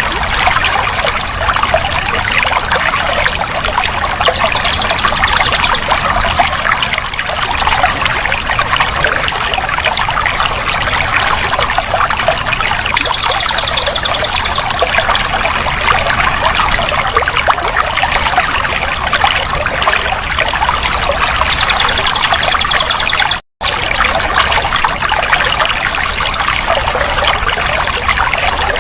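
Running water trickling and pouring steadily. A short high trill comes in about every eight seconds, and the sound drops out completely for a moment about two-thirds of the way through.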